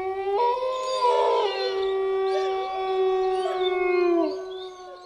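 Dog howling: several overlapping howls, the main one a long held note that falls away about four seconds in.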